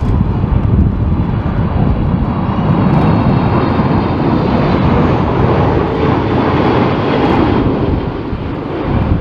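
Jet airliner's engines running loud and steady as the aircraft passes close by, with faint high whining tones over the noise. The sound eases slightly near the end.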